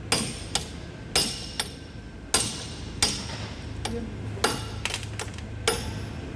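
Hammer blows on metal during a truck gearbox overhaul: about nine sharp, irregularly spaced strikes, each leaving a brief metallic ring.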